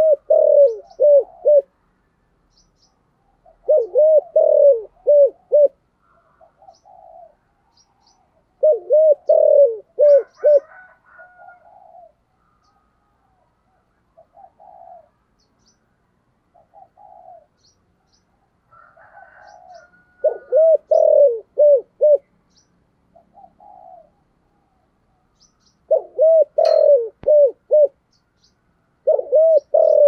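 Spotted dove with a deep 'giọng thổ' voice singing its cooing song: about six bouts of several low, arched coos, with softer notes between. Faint high chirps of small birds sound in the background.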